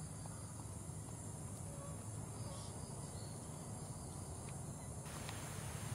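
Faint, steady chirring of forest insects over a low steady hum, with no shot or other sudden sound.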